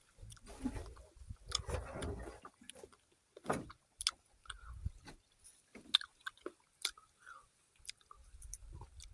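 A person chewing and biting into fruit close to the microphone, with irregular short clicks and mouth noises.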